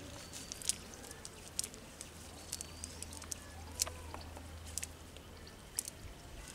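Outdoor ambience: scattered sharp clicks about once a second over a low steady hum, with a few faint short chirps.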